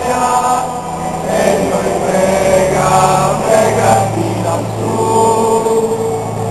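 A large crowd of devotees singing together in long held notes, over a steady low drone.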